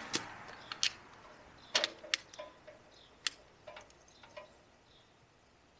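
Scattered light clicks and taps, a dozen or so at uneven spacing, of a coiled air hose and its metal fittings being handled. A hiss fades out in the first second.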